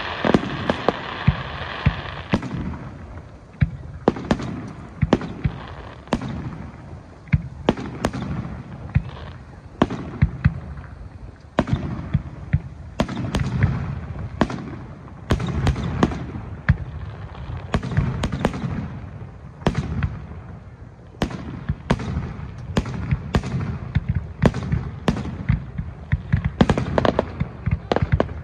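Aerial fireworks display: a fast, continuous run of shell bursts and launches, sharp bangs coming several to the second with low rumbling between them. There is a band of crackling in the first couple of seconds.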